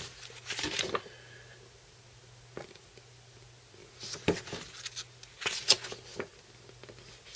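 Large, thick paper pages of a model-kit instruction manual being handled and turned: a few short paper rustles and flaps, one near the start and several more in the second half.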